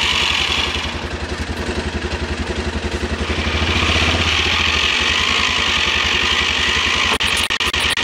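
ATV engine idling close by with a steady low pulse; the level dips a little about a second in and builds back up by about four seconds.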